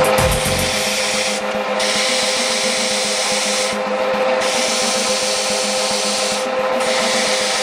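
Metal lathe running with a steady hum while an abrasive block is pressed against the spinning metal workpiece, making a continuous rubbing, sanding sound as the surface is smoothed.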